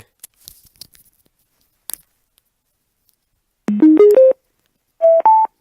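Power-on (boot) chime of a TAL BTL-BL Bluetooth bottle speaker: a quick rising run of short electronic tones, then two higher notes about a second later. A faint click comes before it.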